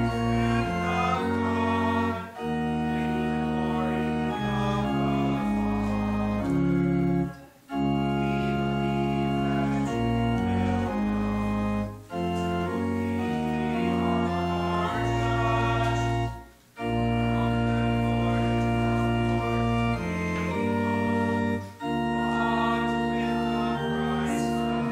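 Church organ playing a hymn in full, sustained chords, phrase by phrase, with a brief break between phrases about every four to five seconds.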